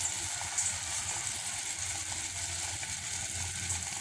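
Onions frying in oil in an aluminium pot, a steady sizzle with small crackles.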